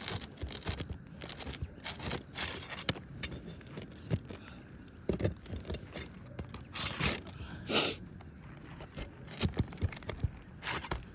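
Flat bar scraping under asphalt roofing shingles and prying out a roofing nail, with scattered clicks and scrapes and a few short rustling bursts.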